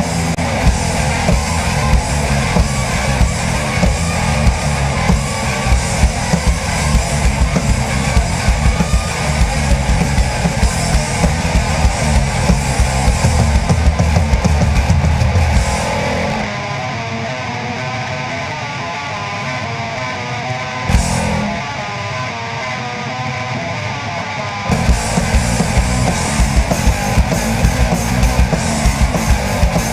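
Instrumental section of a heavy rock song played by a band: distorted electric guitar, bass and drum kit. About halfway through, the drums and bass drop out for several seconds, leaving the guitar with a single band hit, then the full band comes back in.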